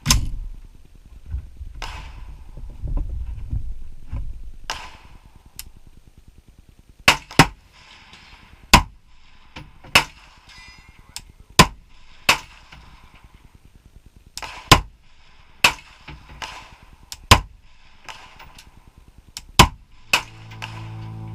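Gunshots: a few softer shots, then a series of about a dozen loud, sharp shots fired at roughly one-second intervals, uneven in spacing. Music fades in near the end.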